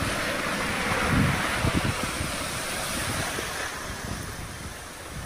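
Small waves washing in over the sand at the water's edge, the wash swelling about a second in, with wind gusting on the microphone.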